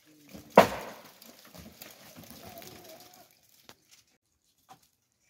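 A loud sharp knock about half a second in, then faint scraping and handling noise with a few light clicks near the end.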